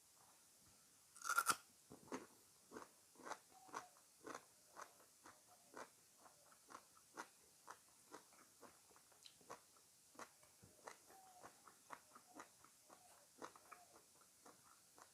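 A loud crunchy bite into fresh fruit about a second in, then steady close-up chewing with short crisp clicks about twice a second, growing fainter.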